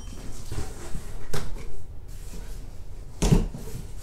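Corrugated cardboard shipping box being opened by hand: flaps rustling and scraping, with two sharp knocks, one about a second in and one near the end.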